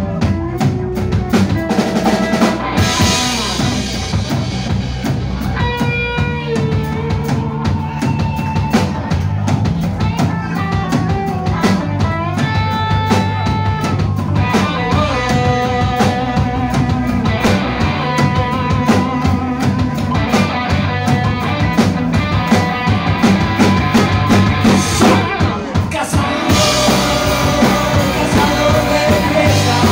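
Rock band playing live: drum kit with bass drum and snare driving a steady beat under electric guitars.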